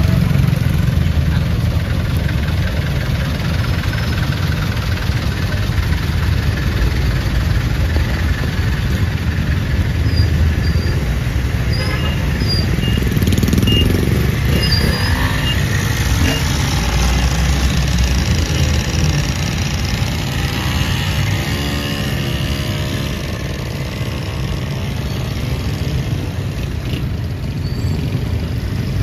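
Street traffic: engines of passing cars and motorcycles over a steady hiss of rain. About halfway through comes a run of short, high beeps.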